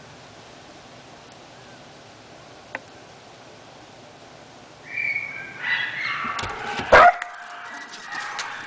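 Faint steady hiss, then from about five seconds in puppies yipping and whining in high-pitched calls, with one loud sharp sound about seven seconds in.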